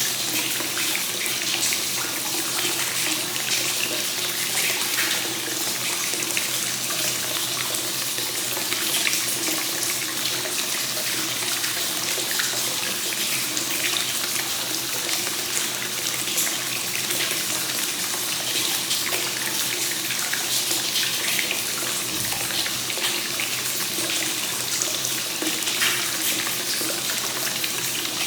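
Hot spring water pouring continuously from the source into a bath, splashing and running steadily without a break.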